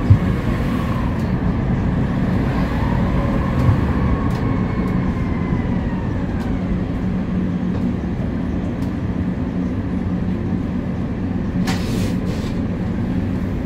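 Prague tram running slowly, heard from on board: a steady low rumble with a constant hum, and faint whines that rise and fall in pitch. A single sharp knock comes right at the start, the loudest sound, and a brief crackle about twelve seconds in.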